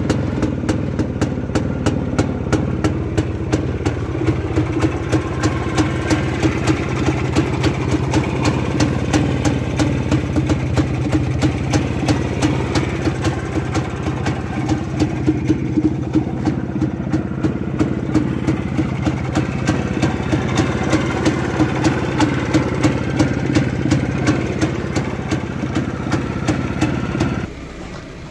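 Muravey cargo scooter-trike's small single-cylinder two-stroke engine running steadily at idle with a rapid, even firing beat. Near the end the engine sound drops away abruptly.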